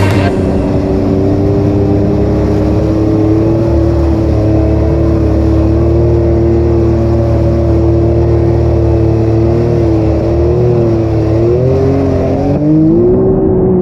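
Can-Am Renegade 1000R ATV's V-twin engine pulling at a steady throttle through a flooded trail, its revs rising near the end.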